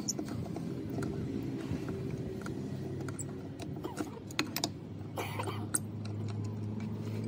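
L-shaped wheel brace turning the wheel nuts on a tractor wheel: scattered metal clicks and taps, most of them about two thirds of the way through. A faint low steady hum runs underneath and grows a little near the end.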